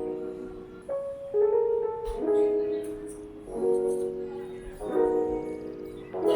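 Background music of sustained keyboard chords, a new chord about every second and a half.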